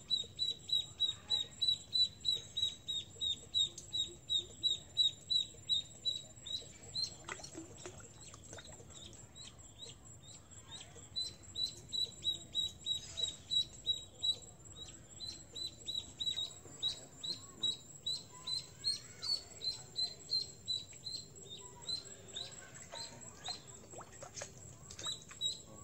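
Duckling peeping over and over, short high peeps about three a second, stopping for a few seconds partway through and then starting again; a live duckling used as snakehead bait.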